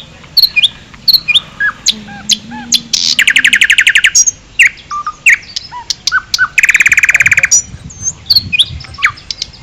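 Songbirds chirping: scattered short chirps and whistled notes, with two fast trills about three and six and a half seconds in, each lasting about a second.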